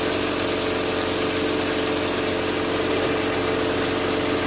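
Vapor blasting machine running, a steady hum with a constant hiss from the water-and-abrasive slurry spray.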